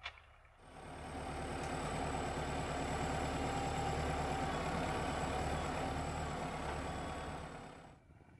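MTZ 952.3 tractor's diesel engine running as it hauls a log-laden Palms forestry trailer, with a thin, steady high whine over it. The sound starts abruptly about half a second in, swells, then fades and cuts off near the end.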